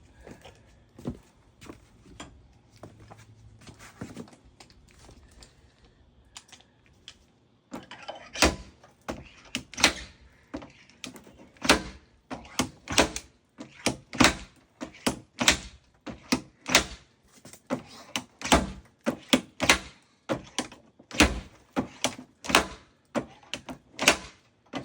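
Paintless dent repair tools tapping on a 2019 Toyota Camry's front fender: faint clicks and handling at first, then from about eight seconds in a long run of sharp, irregular knocks, about two a second.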